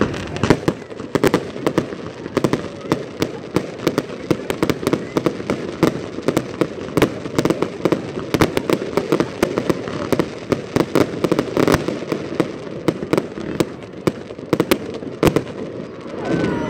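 Fireworks display: aerial shells bursting in the sky, with a rapid, dense run of sharp bangs and crackles throughout.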